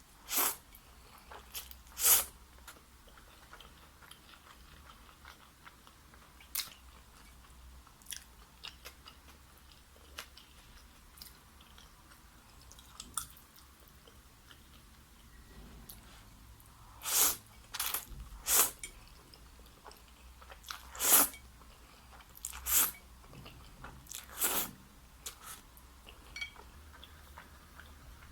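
Close-up eating sounds: crisp bites and crunchy chewing of fried chicken, in scattered sharp crunches, with a denser run of loud crunches in the second half.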